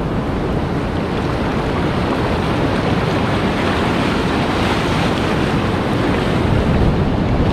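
Ocean surf washing up the beach, a steady rush of breaking waves, with wind buffeting the microphone.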